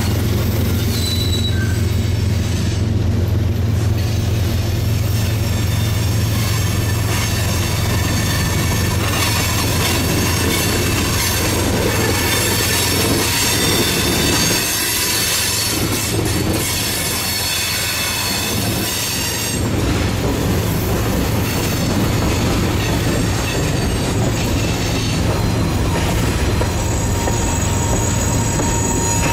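Freight cars of a passing CSX train (covered hoppers and tank cars) rolling over the rails with a steady rumble, and steel wheels squealing in high thin tones. The low rumble eases about two-thirds of the way through, and a fresh squeal tone starts near the end.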